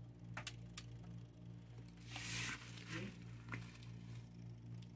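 A steady low electrical hum from the powered test wiring, with a few light clicks and a short rustle of handling about two seconds in.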